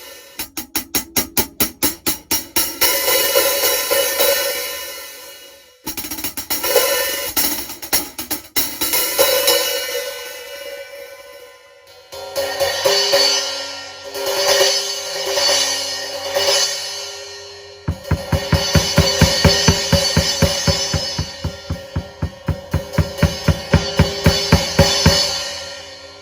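A secondhand set of drum-kit cymbals played in a sound test: quick runs of strokes that build into a long ringing wash, then swelling washes in the middle, and about three to four steady strokes a second with the cymbals ringing on through the last third.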